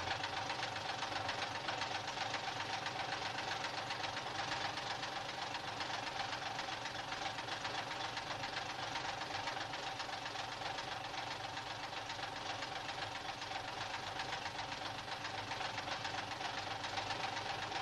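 Bus engine idling steadily with a dense, rapid clatter.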